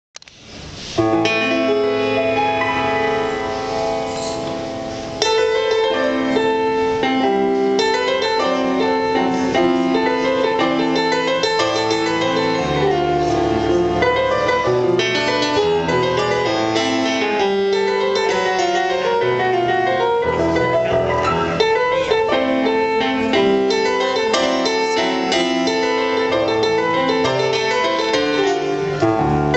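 Grand piano played live: long ringing chords for the first few seconds, then busier, quicker passages of notes and chords from about five seconds in.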